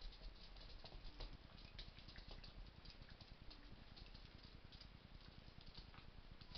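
Faint, irregular clicking and pattering of small dogs' claws scrabbling on a hardwood floor as two rat terrier–miniature pinscher puppies play.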